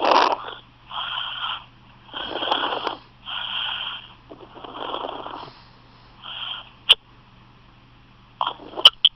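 A person with hiccups, recorded on a phone: breathy hiccup gasps about once a second, with two or three sharp clicks near the end.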